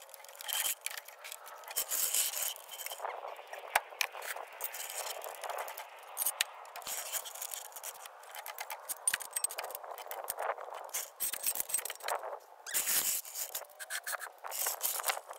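Irregular scraping and clicking of a steel floor jack and jack stands being set and worked under the car on concrete.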